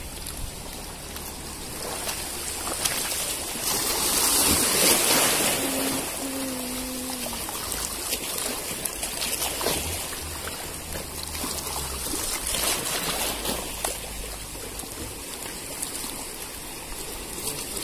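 Shallow sea water lapping and trickling over shoreline rocks, a steady wash that swells for a couple of seconds about four seconds in.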